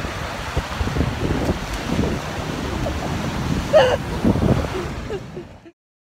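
Ocean surf washing over a rocky beach, with wind gusting on the microphone. There is a brief rising call about four seconds in, and the sound cuts off abruptly near the end.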